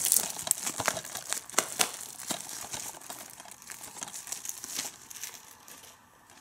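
Clear plastic shrink-wrap being torn and peeled off a DVD case, a dense crinkling and crackling that thins out and dies away about five seconds in.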